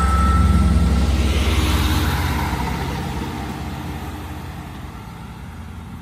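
Two coupled GWR Class 158 diesel multiple units pulling away from the platform: a loud diesel rumble and wheel-on-rail rush, strongest about a second in, then fading steadily as the train recedes.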